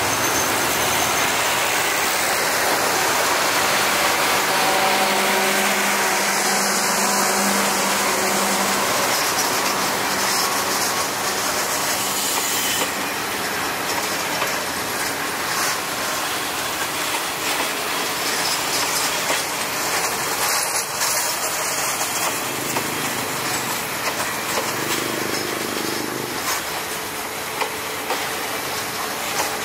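A train running past on the rails, with a steady rushing noise. From about halfway through it is joined by many quick clicks of wheels over the track.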